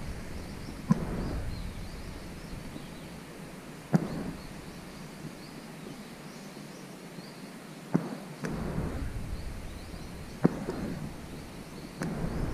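Outdoor riverside ambience: a low rumble from wind on the microphone, faint distant birds chirping, and a sharp click every few seconds where the recording jumps between shots.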